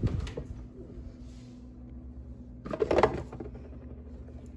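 Refrigerator door pulled open, with a short clatter of bottles and jars in the door shelf about three seconds in as a ketchup bottle is lifted out. A low steady hum runs underneath.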